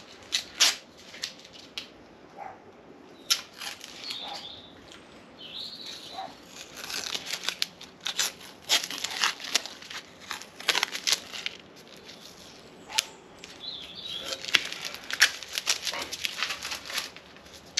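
Masking tape being peeled and torn off a freshly clear-coated rotary engine front cover, in short irregular rips and crinkles, some in quick runs.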